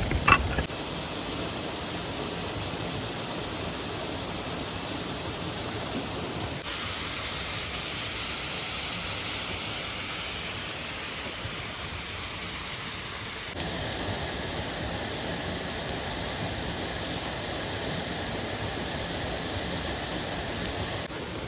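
Steady rush of a nearby waterfall and mountain stream. The texture of the water noise changes abruptly twice. A short knock is heard at the very start.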